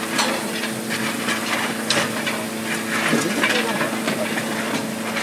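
D51 steam locomotive standing in steam, hissing in irregular spurts over a steady low hum.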